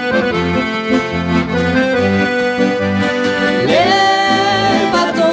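Accordion playing a folk tune with acoustic guitar over a regular bass beat. A voice glides up into singing about three and a half seconds in.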